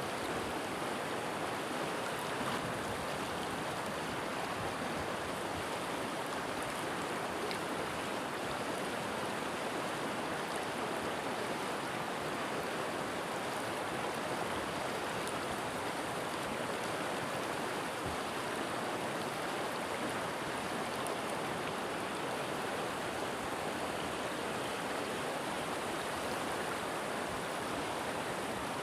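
River water flowing and rushing over stones: a steady, even rush.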